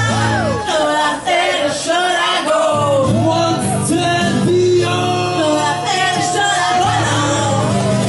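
Live acoustic duo music: a voice singing a melody over sustained low instrumental accompaniment.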